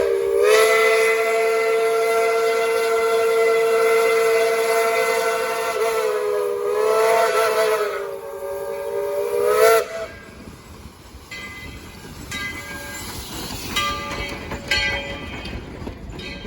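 Steam locomotive chime whistle, several notes sounding together: one long blast of about six seconds, a brief dip, then a second blast that ends abruptly about ten seconds in, followed by fainter train sounds.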